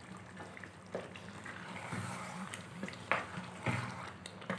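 Potato and aubergine curry simmering gently in an aluminium pot, with a few light clicks and knocks from a wooden spoon stirring it in the second half.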